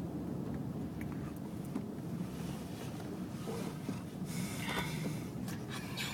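A person asleep snoring with the mouth open, in rough breaths, the loudest about four seconds in, over the steady low rumble of a moving car's cabin.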